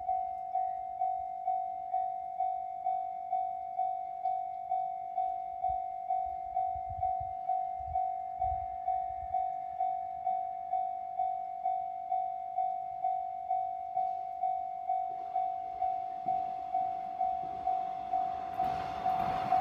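Japanese railroad crossing warning bell ringing steadily, about two strikes a second. In the last few seconds a local train approaches, its rumble rising and growing loud near the end.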